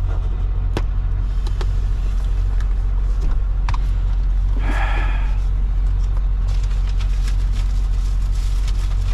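Semi truck's diesel engine running steadily: a deep, constant drone. A short higher-pitched tone sounds about halfway through, with a few faint clicks.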